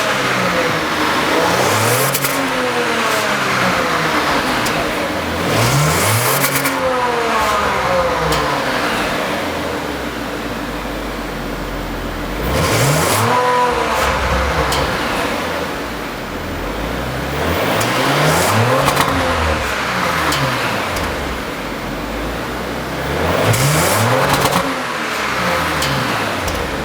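A 2018 Audi turbocharged V6 petrol engine revved while standing still. It gives about five blips of the throttle, each rising in pitch and falling back to idle, a few seconds apart.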